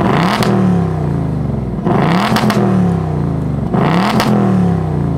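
2024 Ford Mustang GT's 5.0-litre Coyote V8, just fired up, revved through its Ford Performance active quad exhaust: three quick throttle blips about two seconds apart, each rising fast and falling back slowly to idle.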